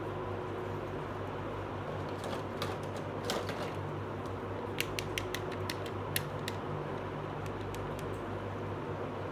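Light plastic clicks and taps of small toy pieces being handled, a few scattered, then a quick run of them around the middle, over a steady low hum.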